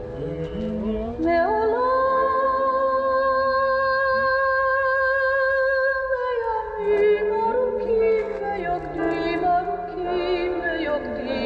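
Recorded Hebrew song sung by a woman: one long held note for about five seconds, then the melody moves on through shorter notes.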